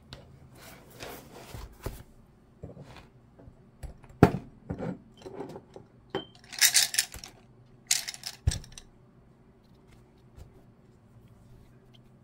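A spiral-bound sketchbook being handled and set down on a cutting mat: scattered knocks and clicks, the sharpest about four seconds in, with two short rustling bursts in the middle.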